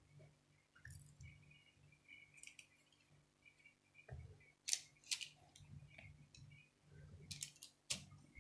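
Faint handling sounds of oiled potato slices being picked from a bowl and laid on baking paper in a glass baking dish: soft low thumps with a few sharp clicks, a pair about halfway through and a cluster near the end.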